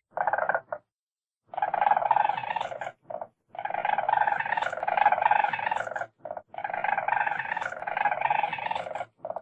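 Weasel chattering: bouts of rapid, pulsed chatter, the two longest lasting about two and a half seconds each, broken by short gaps and brief bursts.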